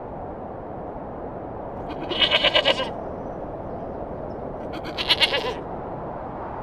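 Sheep bleating twice: a quavering call about two seconds in and a shorter one about five seconds in, over a steady background hiss.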